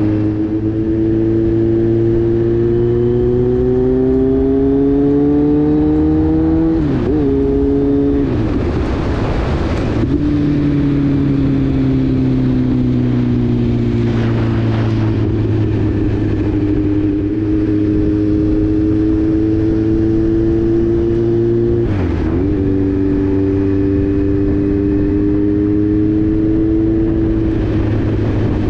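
Kawasaki Z900's inline-four engine heard from the rider's seat at speed, over wind rush. The revs climb, dip sharply at a gear change, fall off, then climb again to a second quick change about two-thirds through. There is a loud burst of wind noise just after the first change.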